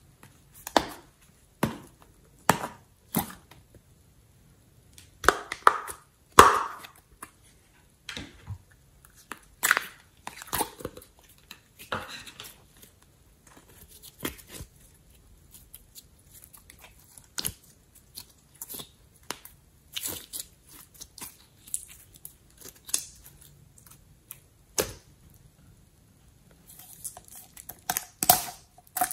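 Hand-played slime and packaging sounds: a scatter of separate clicks and snaps from plastic slime tubs and lids, with sticky squishing and popping as slime is stretched and squeezed by hand. Near the end, plastic wrap crinkles as a packaged slime box is handled.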